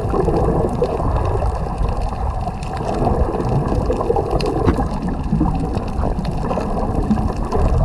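Muffled underwater water noise picked up by a camera in a waterproof housing: a steady, low, churning rumble with a few faint clicks.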